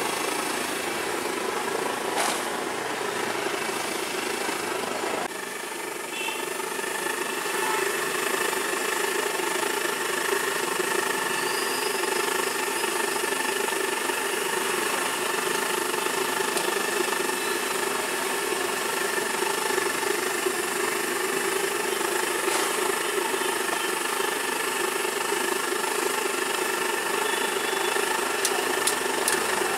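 A large wok of raw banana slices frying in hot oil, a steady hiss, over a constant engine-like hum of street traffic.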